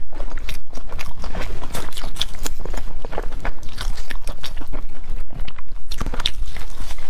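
Close-miked chewing and biting of fried red bean cloud bread, with a dense run of small clicks and mouth sounds.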